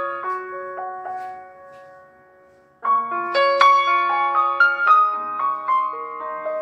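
Background piano music. The notes ring out and fade to a brief near-silent gap about two and a half seconds in, then a new run of quicker piano notes starts abruptly.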